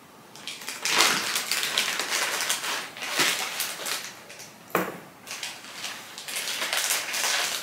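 Clear plastic wrapping crinkling and rustling as a leather bag strap is unwrapped and pulled out, with sharper crackles about a second in and again near the five-second mark.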